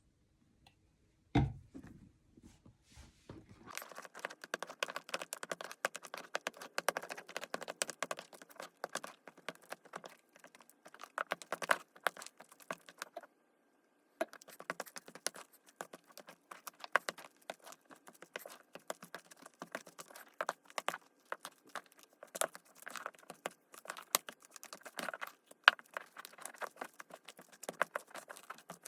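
Homemade fluffy slime being worked, making a dense run of small sticky clicks and pops. There is a single knock about a second in, and a short pause in the clicking about halfway through.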